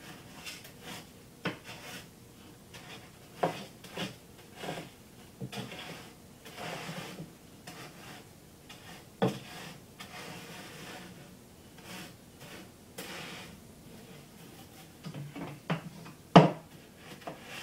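A cutting board scraping and pushing crushed coral gravel flat on the bottom of an aquarium, in irregular strokes with scattered knocks. One sharp knock comes near the end.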